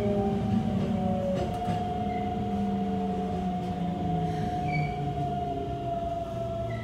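Keikyu 600 series train's Mitsubishi GTO-VVVF traction inverter whining through the car floor while the train brakes into a station. Its several tones sink slowly in pitch over the rumble of wheels on rail, with a few brief high squeaks.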